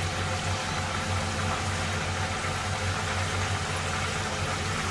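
Panasonic induction hob heating a saucepan of water: a steady low electrical hum with an even hiss, as from its cooling fan.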